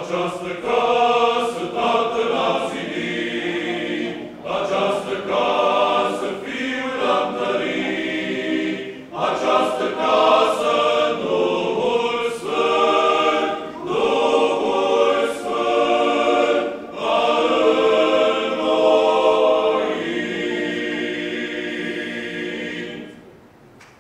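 Men's Orthodox church choir singing a cappella, in phrases of a few seconds with brief breaks between them. Near the end the voices hold a long, quieter final chord that then stops.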